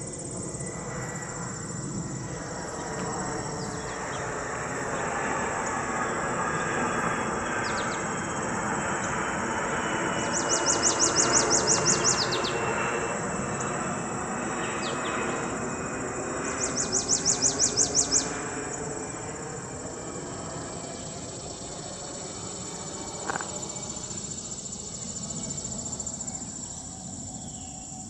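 Insects calling in a summer meadow: a steady high trill throughout, with two loud, rapidly pulsing bursts of about a second and a half each, one about a third of the way in and one about two-thirds in. Underneath runs a distant rumble that swells toward the middle and fades again.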